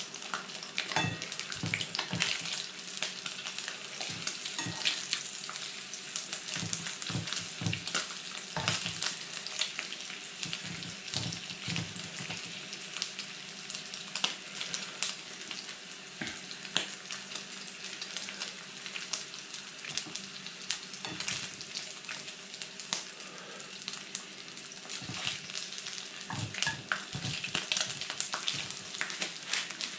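Bacon sizzling and popping in a non-stick frying pan on a portable camping stove. Metal tongs click and scrape against the pan now and then as the rashers are turned.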